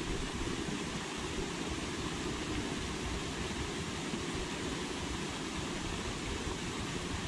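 Steady rushing hiss of the pond's spraying fountain, with a fluttering low rumble of wind on the microphone.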